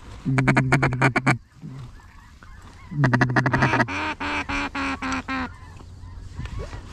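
A duck call blown in two loud series of quacks, the second breaking into a string of about six short, evenly spaced notes, calling to incoming ducks. Faint waterfowl calls carry on in the background.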